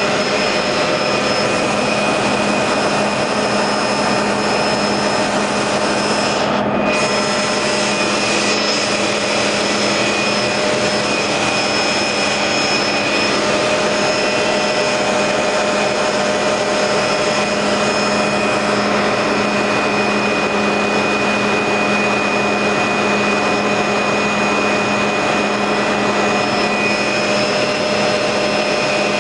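Steady engine and airflow drone inside the cabin of a light aircraft in flight, with several constant whining tones over a broad rush. The high hiss briefly drops out about seven seconds in.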